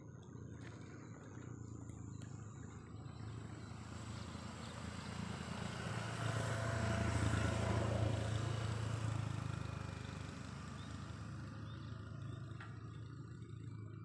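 A motor vehicle passing by, its engine growing louder to a peak about eight seconds in and then fading away.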